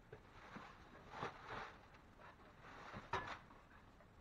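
Faint, short scrapes of a drywall knife spreading and feathering joint compound on a ceiling, several strokes in a row, with a sharper knock about three seconds in.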